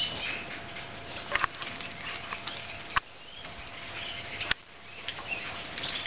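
Red factor canaries bathing in a small plastic bird bath, their wings fluttering and splashing the water, with a few sharp taps.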